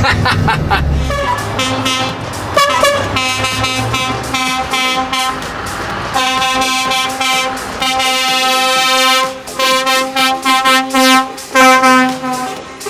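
Truck air horns sounding as a convoy of lorries drives past: long held blasts, then a run of shorter toots near the end.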